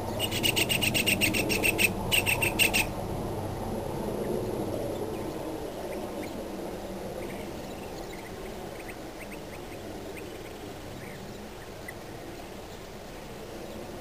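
An animal's rapid rattling call, about eight pulses a second, in two runs over the first three seconds with a short break between them. It is the loudest sound here. After it comes a steady low outdoor background with a few faint chirps.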